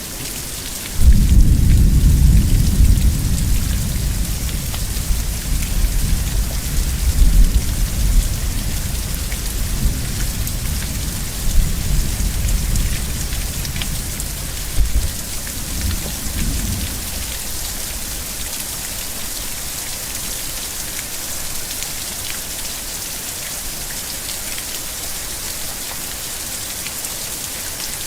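Steady rain with a thunderclap about a second in. The low thunder rumble rolls on with several swells for about fifteen seconds, then dies away, leaving the rain alone.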